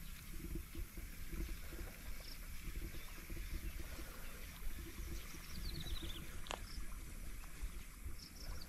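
Steady low rumbling noise on the microphone of an outdoor bankside recording. A bird gives a quick descending series of high chirps twice, about five and a half seconds in and again near the end, with a single sharp click in between.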